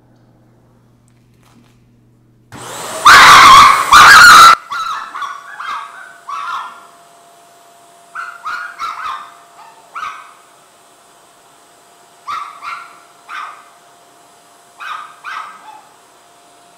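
ECOVACS Deebot N8 Pro+ self-emptying station starting its suction to empty the robot's dust bin: a loud rushing noise begins about two and a half seconds in and lasts about two seconds with a brief break, then drops to a faint steady whine. Over the whine a dog barks in four short runs of a few barks each, set off by the vacuum sound.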